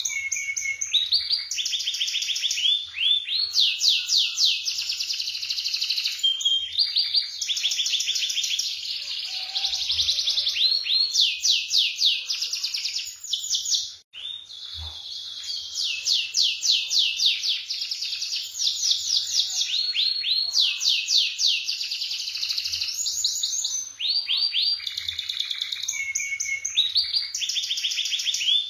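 Domestic canary singing a continuous song of fast rolling trills, each phrase a rapid string of repeated notes that shifts in pitch every second or two. The song breaks off for a moment about halfway through, then carries on.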